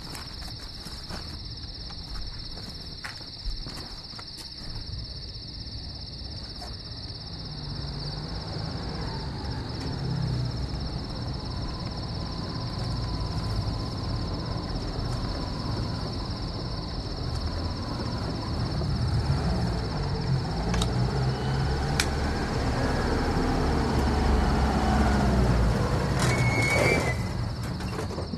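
Crickets chirring steadily, while a UAZ jeep's engine rumbles in and grows louder from about a third of the way through. A brief squeal and a few clicks come near the end.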